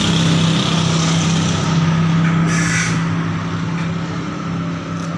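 An engine idling with a steady low hum, with a short hiss about two and a half seconds in.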